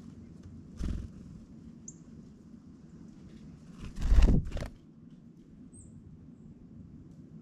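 Birds at a ground feeder: a short bump about a second in, then a louder half-second rush of noise about four seconds in, with two brief high chirps.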